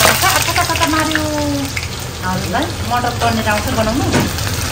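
Cumin seeds frying in hot oil in a pan, a steady sizzle with many small crackles and pops.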